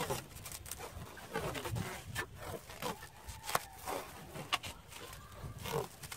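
Plastic stretch wrap being pulled off a hand roll and wound around a firewood bundle: scattered crinkling crackles, with a few short falling squeaks as the film stretches.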